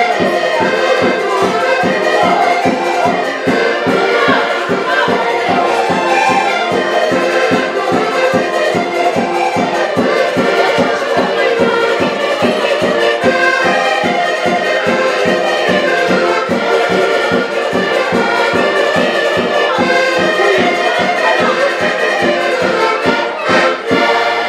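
An ensemble of piano and button accordions playing a lively Portuguese folk tune together, over a steady low beat of about three pulses a second.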